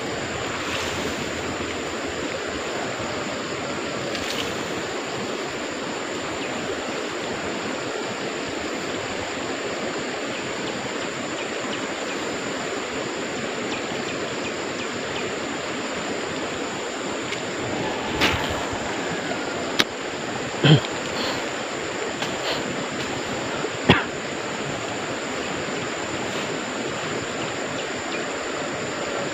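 Shallow stream water flowing steadily, with a few short sharp knocks or clicks about two-thirds of the way through.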